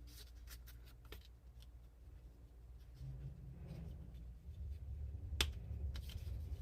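Hands handling the phone's box and packaging: faint scattered clicks and rustles, a low rumble of handling from about halfway, and one sharper click near the end.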